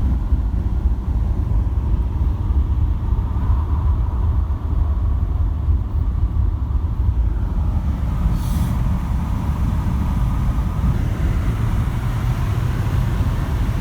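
Steady low rumble of road and engine noise inside a moving car's cabin, with a short hiss about eight seconds in.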